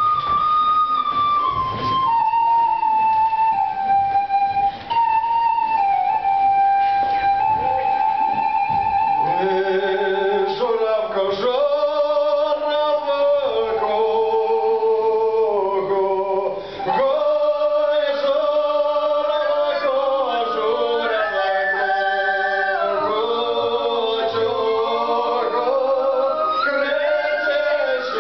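A small wooden folk flute plays a slow solo melody of long notes, stepping down in pitch. About ten seconds in, several men's and women's voices come in singing a Ukrainian folk song together in harmony.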